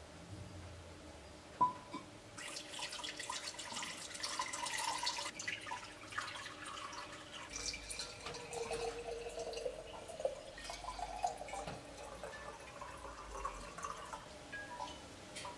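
A sharp knock about a second and a half in, then water poured from a small terracotta jug into terracotta vessels, splashing and trickling for the rest.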